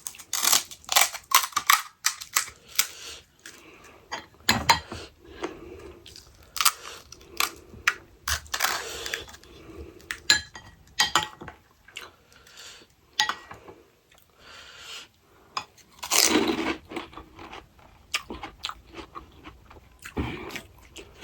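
Close-miked crunching and chewing of crisp pani puri shells, many sharp irregular crunches with a few louder bites.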